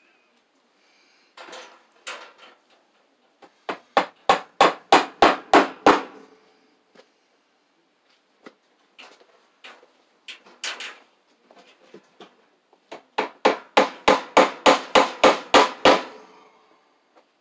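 Hammer driving cable staples to fasten a ground wire: two runs of quick blows, about four a second, the second run longer, with a few lighter taps between.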